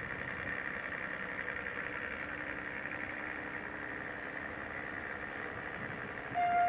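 Diesel shunting locomotive running steadily as it moves a string of tank wagons, with faint high chirps repeating over the engine noise. Near the end a loud steady tone starts suddenly.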